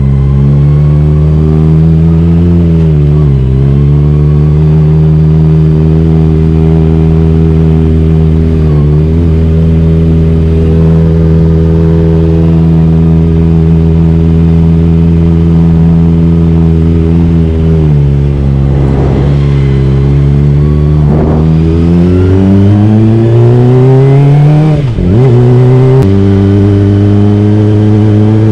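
Kawasaki Ninja ZX-25R's 249 cc inline-four engine through a Yoshimura R-11 exhaust. It holds a steady low note while rolling slowly, then revs up hard with rising pitch, breaks briefly at a gear change about three-quarters of the way in, and climbs again.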